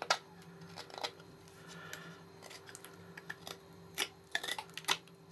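An M390 steel knife blade shaving curls off a block of alder: a handful of short, crisp slicing strokes, several close together near the end. The sound of a keen, finely finished CBN-sharpened edge biting cleanly into the wood.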